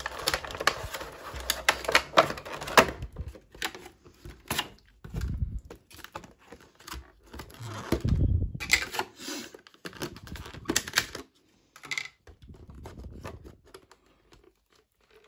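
Cardboard box and card packaging being handled and torn open: a run of sharp clicks and taps with light rustling, and dull thumps about five and eight seconds in. It grows quieter near the end.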